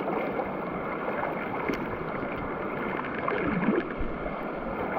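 Creek water running steadily: an even rush of flowing water.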